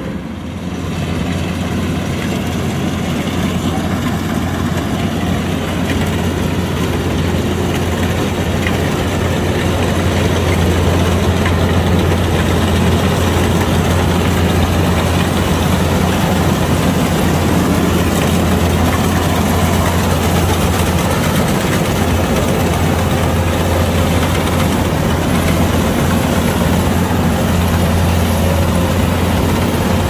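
Kubota combine harvester's diesel engine running steadily, with a deep drone, growing louder over the first ten seconds or so and then holding level.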